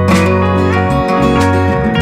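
Background music: acoustic guitar with slide guitar, in a country style, with plucked notes and chords.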